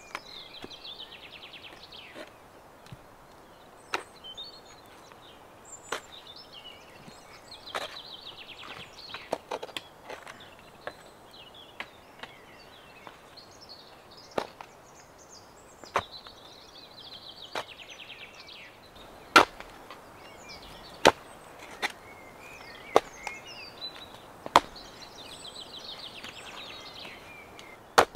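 Sharp single knocks, like a tool striking wood or hard ground, come irregularly every second or two and are louder in the second half. A songbird's trilling song repeats about every eight seconds, each trill lasting about two seconds.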